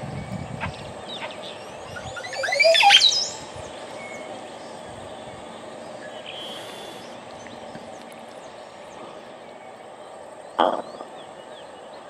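Oropendola at its colony giving its loud, liquid gurgling song: a rapid run of gliding notes about two seconds in, lasting about a second. A short sharp sound comes near the end, and faint chirps of other birds are heard throughout.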